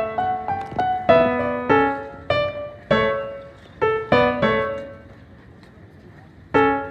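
Background piano music: struck notes and chords that ring and fade, with a pause of about a second and a half near the end.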